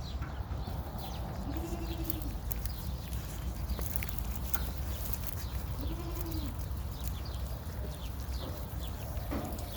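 Livestock calling twice, two short calls that rise and fall in pitch, several seconds apart, heard over a steady low rumble and many faint high chirps.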